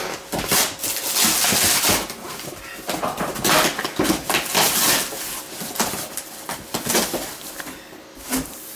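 Cardboard shipping box being torn open and its packing pulled apart: irregular tearing, rustling and scraping with sharp knocks, busiest about a second in and again around the middle.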